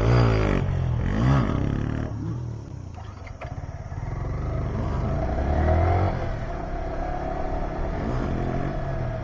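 Motorcycle engines revving while riding. The pitch rises and falls in a couple of quick sweeps in the first two seconds and again about five to six seconds in, over a steady engine drone and wind rush.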